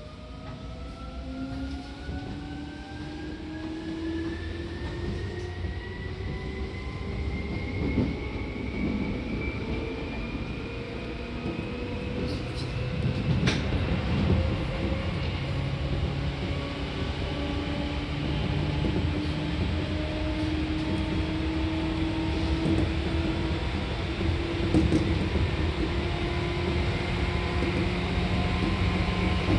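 Seibu New 2000 series electric train accelerating, heard on board: the traction motor whine climbs steadily in pitch over the first half and then levels off, over the steady rumble of the wheels on the rails. A couple of short knocks come partway through.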